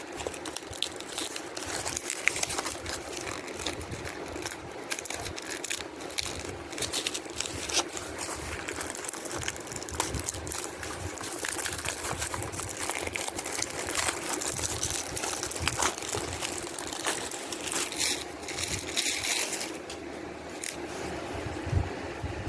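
Crinkling and rustling of plastic packaging being handled, with many small clicks and crackles.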